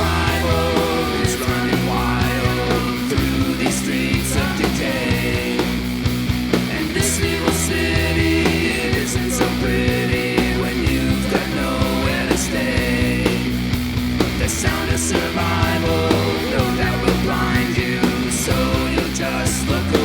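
Rock band playing at a steady beat: electric guitar, bass and drums, with cymbal hits high above.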